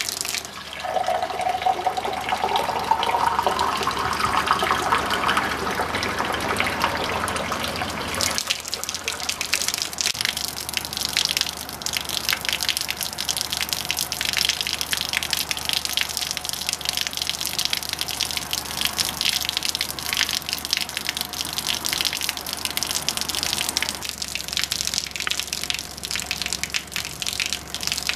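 Water pouring from a tube into a drinking glass, the pitch of the filling rising over the first several seconds. Then a steady splashing and hissing of the falling stream of water.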